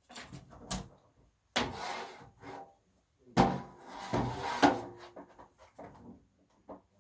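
Handling noises: a few sharp knocks, then two longer stretches of scraping and rubbing, as objects are moved and worked against a hard surface.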